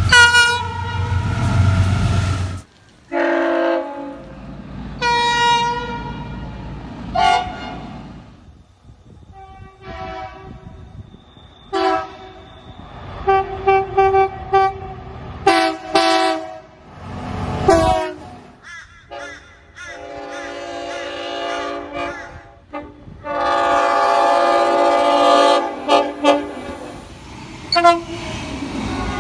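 Train horns from several different trains sounded one after another, with abrupt cuts between recordings. They run from short toots to longer blasts, each a chord of several tones. The loudest is a long blast a few seconds before the end. A low rumble runs under the first horn.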